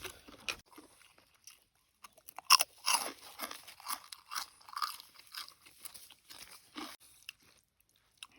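A person biting and chewing something crisp close to the microphone: sharp crackling crunches, the loudest a couple of seconds in, followed by a run of smaller crunches that stops shortly before the end.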